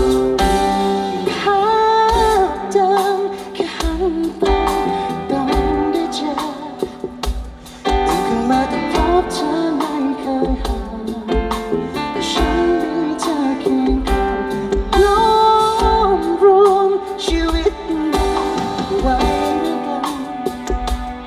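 Live band playing a soul-flavoured song: a sung melody over guitar, bass and a steady drum beat. The band drops back briefly about seven seconds in, then comes back in full.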